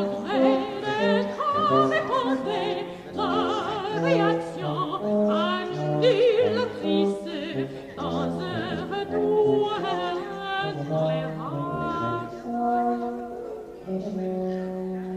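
Contemporary orchestral music with operatic singing: a high voice sings with wide vibrato over held orchestral tones.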